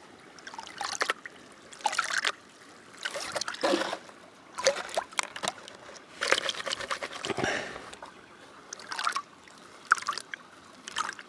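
Plastic gold pan being swirled and dipped in shallow creek water while washing down gravel, water sloshing and trickling off the rim in irregular splashes a second or so apart.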